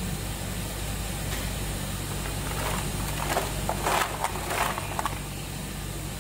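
Solid ice tubes clinking and shifting against glass bottles and a glass bowl as hands move the bottles in the ice, in a burst of sharp clatters from about two and a half to five seconds in. Under it, a steady low machine hum.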